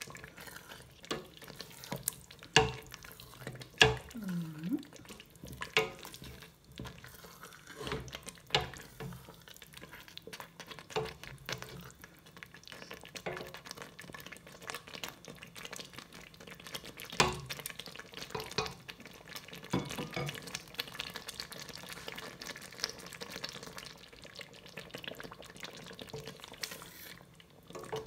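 A wooden spoon stirring thick peanut sauce with leaves in a stainless steel pot. Irregular knocks and scrapes of the spoon against the pot's side and bottom ring out, the loudest about two and a half and four seconds in, over a faint sizzle of the sauce cooking.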